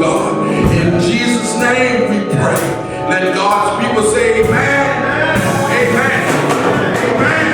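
Church music: singing over instrumental accompaniment.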